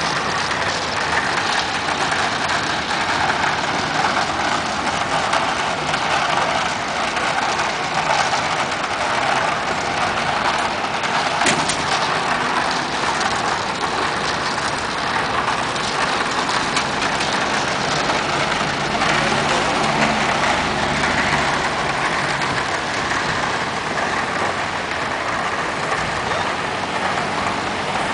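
Steady traffic noise: a continuous even rush of vehicles on the road, with one sharp click about a third of the way through.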